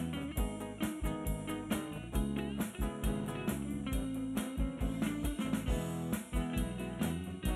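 Live band playing an instrumental passage: electric guitars over electric bass and a drum kit keeping a steady beat.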